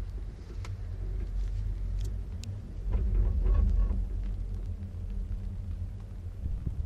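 Steady low rumble and hum while riding a chair lift, with a few light clicks and a louder swell about three seconds in.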